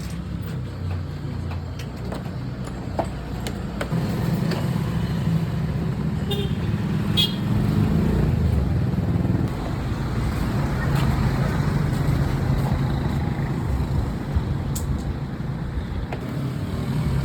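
Steady low rumble of motor-vehicle traffic that swells and eases, with a few light clicks and taps.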